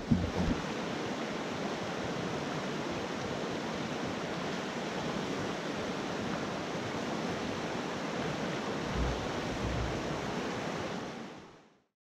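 Fast-flowing river rushing over rocks in shallow rapids: a steady rush of water that fades out near the end.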